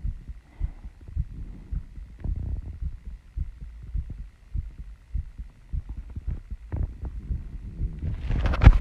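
A woman's heartbeat, still raised after running and squats: a quick, even series of low beats. Near the end, a loud burst of scratchy rustling and clicks covers it.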